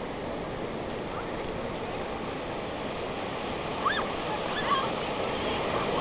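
Surf breaking and washing up the beach in a steady rush, with a couple of short high-pitched cries about four seconds in.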